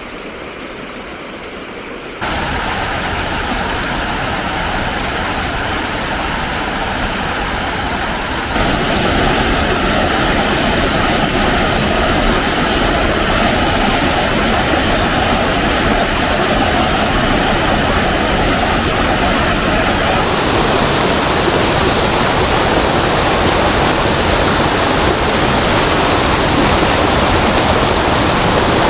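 Rushing water of a small woodland waterfall cascading over rocks: a steady hiss-like rush that jumps louder about two seconds in and again about eight seconds in.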